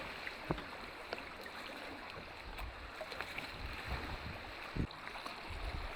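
Water lapping and splashing around a canoe under paddle, with scattered light knocks and one louder thump about five seconds in.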